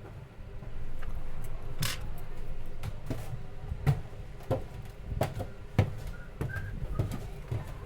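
Light, irregular clicks and taps of watchmaker's tools on small metal watch-movement parts during disassembly, over a low steady hum.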